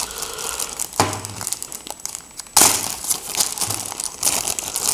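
Plastic packaging crinkling and rustling as a camera is unwrapped by hand, with a sharp rustle about a second in and a louder burst of crinkling about two and a half seconds in.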